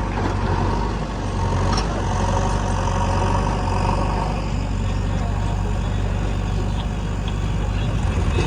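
Heavy diesel engine of a backhoe loader or tractor running steadily.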